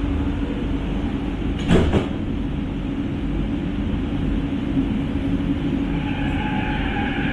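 Bombardier Innovia ART 200 metro car running, heard from inside: a steady low rumble with two sharp knocks close together about two seconds in. Near the end, the whine of the linear induction motor comes in as steady high tones.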